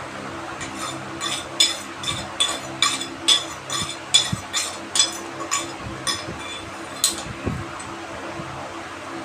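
A regular series of light, ringing clinks of hard objects, about two a second, starting faintly and ending with a sharper clink about seven seconds in, over a steady low hum.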